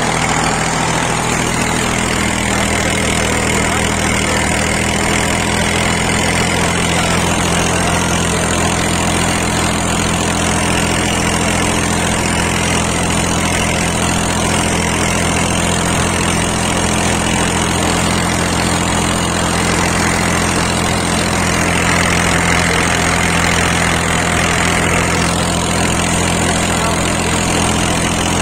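Tractor's diesel engine running steadily at constant speed, pulling a 36-cutter rotavator through the soil.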